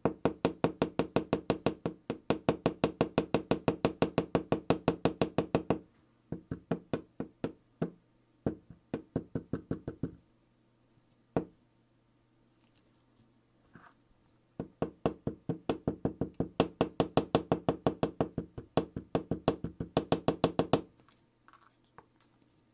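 Small hammer tapping lightly and quickly on the pins of a 1:12 scale model motorcycle chain held in a metal jig, peening the pin heads flat to rivet the links. Two long runs of quick taps, about six a second, with a few scattered taps and a short pause between them.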